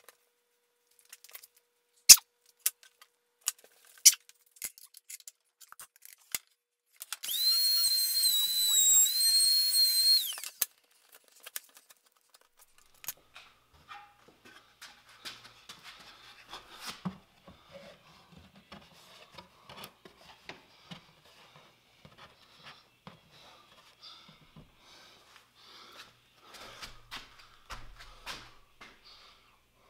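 Wood pieces clacking and tapping on a workbench as they are handled, two of the clicks sharp and loud. Then a small high-speed power tool runs for about three seconds with a steady high whine. Soft knocks and scraping follow as a wooden drawer face is worked into place in the chest.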